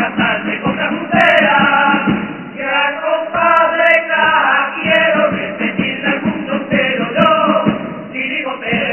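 Men's carnival chirigota chorus singing together, accompanied by strummed Spanish guitars over a steady beat.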